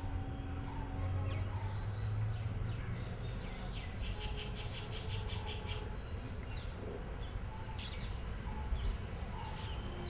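Birds chirping repeatedly with short high calls, including a quick trill of repeated notes about four seconds in, over a low steady rumble of outdoor background noise.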